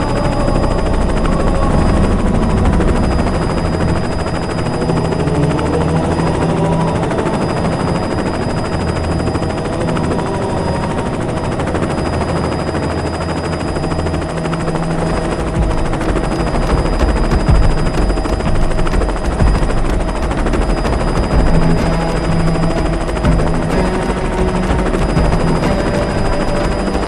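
Helicopter running, a dense mechanical noise with a low rumble and a steady whine held throughout.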